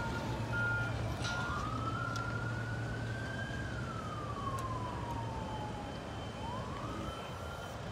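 Emergency vehicle siren wailing, its pitch sliding slowly up and down in long cycles of a few seconds, with short repeated beeps in the first second or so, over a low steady hum.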